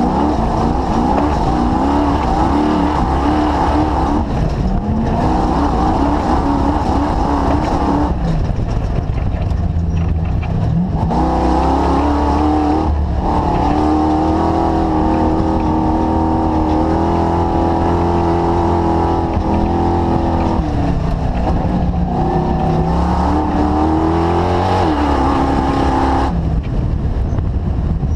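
The DirtKinetics Explorer's engine running under way. Its pitch climbs, drops back and climbs again several times, as with gear changes or lifting off the throttle, and it holds a steady note for several seconds in the middle.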